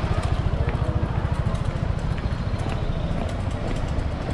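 City street ambience: a steady low rumble that pulses quickly, with scattered light clicks over it.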